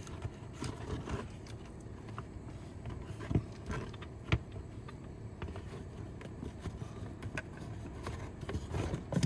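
New cabin air filter being slid into its housing: soft scraping and handling noises, with two sharp light knocks a second apart near the middle.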